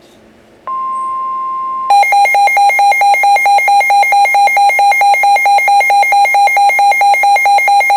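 A NOAA Weather Radio warning alert: under a second in, the steady 1050 Hz warning alarm tone comes on, and about a second later a weather radio receiver's own alarm takes over with a loud pulsing beep, about four pulses a second. It signals that a warning, here a Special Marine Warning, is being broadcast.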